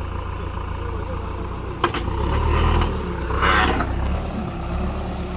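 Heavy diesel machinery engine running steadily, working harder from about two seconds in. A sharp clank comes just before that, and a short hiss about three and a half seconds in.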